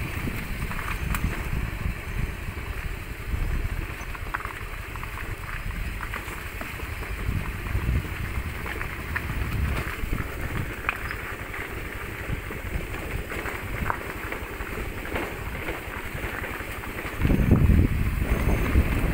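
Honda motor scooter riding slowly over a rough gravel and broken-asphalt track: low engine and wind rumble on the microphone, with scattered clicks and rattles from the stones. The low rumble gets louder near the end.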